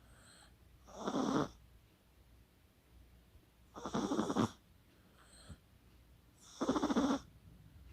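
Chihuahua snoring: three fluttering snores, each about half a second long, roughly three seconds apart.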